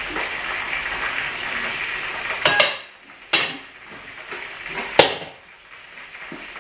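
Red enamelled cooking pot and lid clanking as they are handled and set down: three sharp clanks, about two and a half, three and a half and five seconds in, the last the loudest. A steady hiss underneath stops after the first clank.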